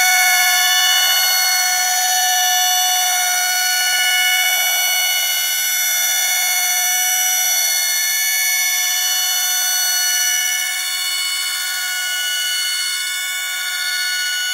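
A dense cluster of steady, high-pitched electronic tones held without a break, with a harsh, buzzing, alarm-like quality.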